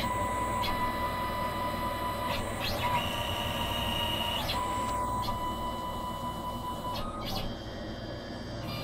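CNC machine's stepper motors whining as its axes move through a program, in steady high tones that change pitch every second or two as each move starts and ends.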